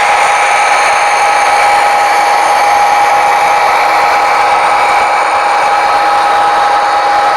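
Model train running, its small electric motor giving a steady whine with a constant pitch.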